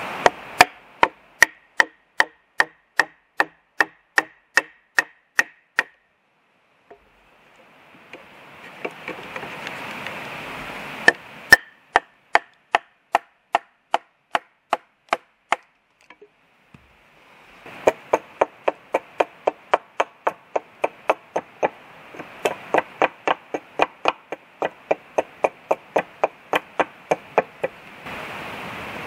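Small axe chopping into the end of a wooden pole: a steady run of sharp strikes about two a second, in three bursts with short pauses between them. Between the bursts, and again near the end, a steady hiss.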